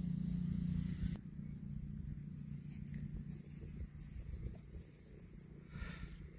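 A cow's low, drawn-out moo that cuts off abruptly about a second in, followed by faint rustling.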